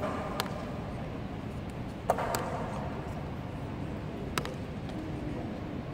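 Honour guards' ceremonial drill: a few sharp, isolated clacks, as of metal-plated boot heels striking the stone floor and rifles being handled, over a steady murmur of the watching crowd in the echoing hall.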